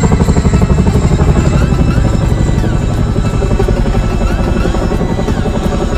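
Boeing CH-47 Chinook twin-engine tandem-rotor helicopter passing overhead, its rotors beating in a fast, even pulse that slowly grows quieter as it moves off.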